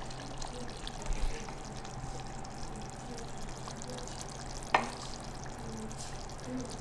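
Steady low sizzling hiss of food cooking in a pan on the stove, over a steady low hum. A single sharp clink of a utensil against a dish comes about three-quarters of the way through.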